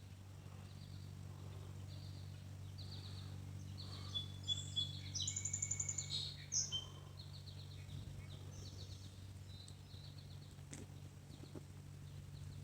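Songbirds singing and chirping, busiest from about four to seven seconds in with a rapid high trill, over a steady low hum.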